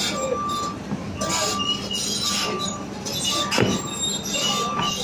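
CAT backhoe with its engine running and its warning beeper sounding a steady high beep about once a second, over the shouts of people nearby. A short falling metallic squeal comes about three and a half seconds in.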